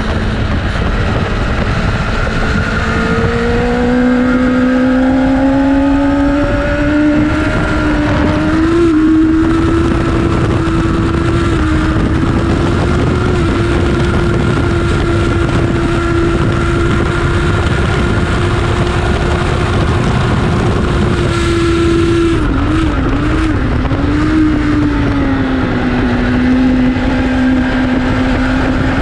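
Onboard sound of a sports motorcycle's inline-four engine at speed on a racetrack, over heavy wind rush. The engine note climbs steadily, holds high for several seconds, then dips and recovers a few times in quick succession a little past two-thirds of the way through. It settles lower and begins climbing again near the end.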